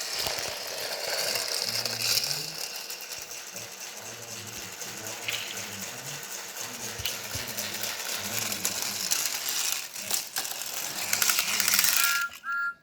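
Plastic talking toy engine's wheels and gears clicking and rattling as it is rolled along, with a few short high tones near the end.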